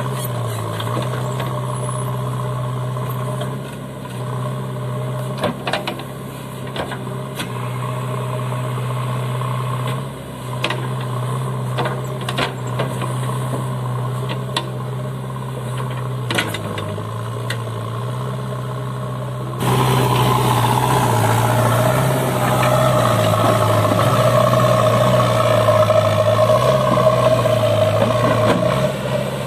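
JCB 3DX backhoe loader's diesel engine running under working load, its pitch dipping now and then as the hydraulics take load, with a few sharp knocks from the digging gear. About two-thirds through, the sound changes abruptly to a louder, rougher engine as the machine drives its front bucket through sand.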